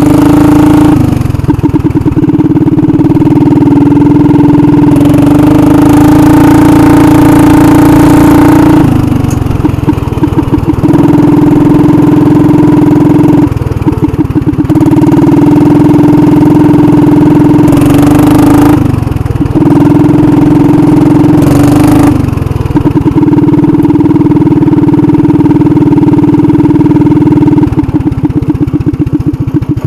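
Commuter TE390 three-wheeler's engine running loud while the machine is ridden, its pitch rising and falling several times as the throttle is opened and eased off.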